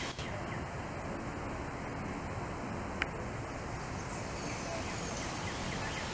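Steady outdoor background noise with a low wind rumble, a few faint high chirps, and a single sharp click about three seconds in.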